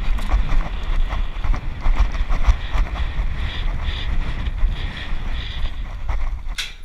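Wind buffeting the microphone of a rider's camera, with a horse's hoofbeats clicking irregularly underneath.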